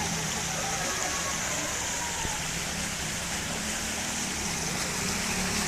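Steady rush of heavy rain and runoff water flowing along the road.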